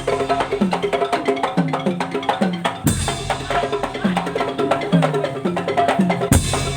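A Madurese tong-tong ensemble playing: wooden slit drums and drums beaten in a fast, dense rhythm over repeated low notes that slide downward in pitch. A heavy low hit lands about three seconds in and another near the end.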